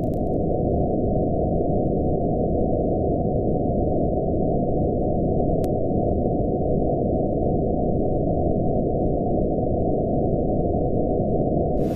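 Synthesized noise built by additive synthesis from many sine-wave partials in bark-scale frequency bins, here held below about 800 Hz, giving a steady dull rushing sound. There is a single click about halfway through, a clipping pop. Near the end a much brighter, full-range version cuts in.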